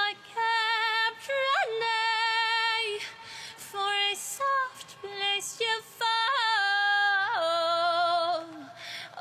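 A female voice singing solo and unaccompanied, holding long notes with vibrato and small flips in pitch, with audible breaths between phrases.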